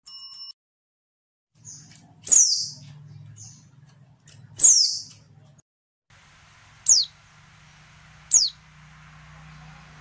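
Female white-eye (pleci) calling: a series of short, high notes, each sliding steeply down in pitch, spaced one to two seconds apart. Calls like these are played as a lure to prompt male white-eyes to sing.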